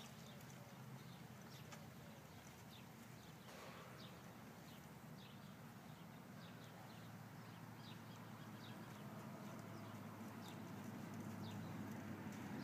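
Faint hoofbeats of a Quarter Horse filly moving at a slow gait on soft arena dirt, over a low steady hum that grows louder near the end.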